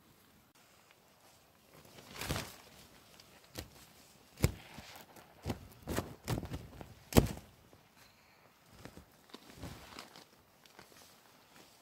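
Irregular knocks and crunching rustles, about a dozen, starting about two seconds in, the loudest about seven seconds in.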